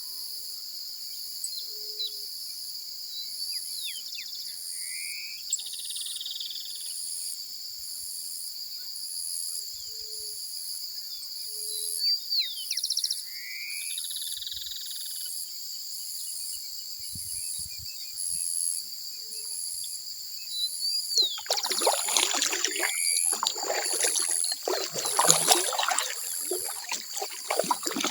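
Dawn chorus: a steady high insect trill with a regular pulse about once a second, and a few short rising bird calls. About three-quarters of the way in, splashing kayak paddle strokes in the water start and become the loudest sound.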